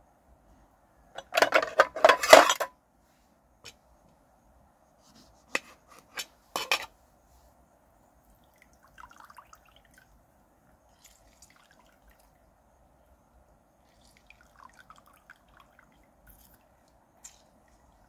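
Utensils clattering against a steel serving tray for about a second and a half, then a few sharp clinks. Later, faint soft squishing as a lemon half is squeezed by hand into a bowl of spice sauce.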